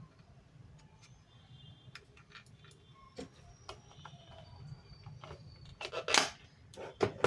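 Light clicks and taps of a GSM auto dialer unit being handled while its SIM card is fitted, with a louder handling clatter about six seconds in and a short knock near the end.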